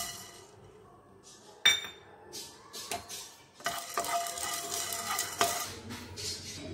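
Black peppercorns rattling and rolling in a dry, hot nonstick pan as they are stirred for dry-roasting. A sharp clink about two seconds in, then several seconds of scraping and rattling.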